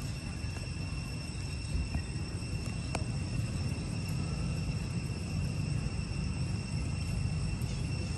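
Outdoor ambience: a steady low rumble with a few steady high-pitched tones over it, and a single sharp tick about three seconds in.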